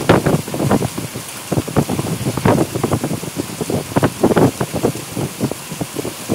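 Heavy rain, with large drops striking a hard surface in quick, irregular hits over a steady hiss.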